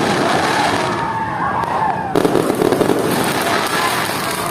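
New Year's fireworks and firecrackers going off without pause: a dense crackle of many rapid bangs, which thickens again about two seconds in.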